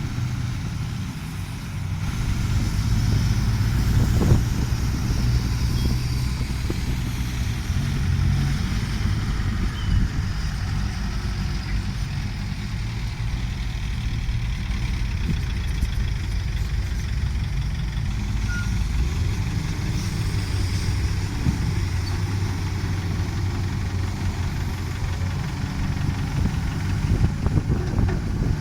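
Diesel engine of a tracked excavator running steadily, with a few knocks about four seconds in, around ten seconds, and near the end.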